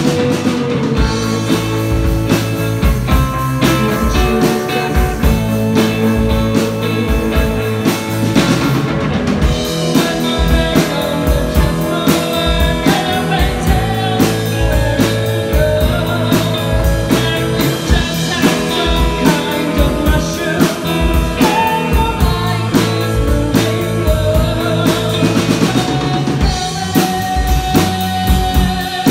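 Live rock band playing: a drum kit keeps a steady beat under electric guitars and bass.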